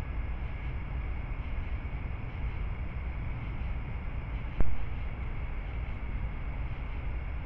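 Steady low rumble and hiss from a trail camera's microphone, like wind on the microphone, with one sharp click about four and a half seconds in.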